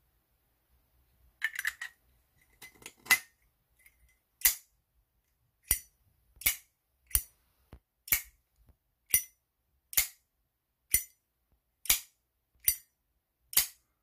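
Zippo Armor lighter, a Harley-Davidson model: the insert is slid into the case with a few scraping clicks, then the lid is flipped open and snapped shut over and over, a sharp metallic click about once a second with fainter clicks between. The click is crisp, which the owner puts down to the thick-walled Armor case.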